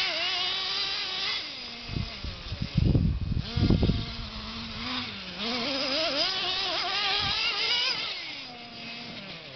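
Radio-controlled car's motor whining and revving up and down with the throttle, its pitch rising and falling. A burst of loud thumps and rumbles comes about two to four seconds in.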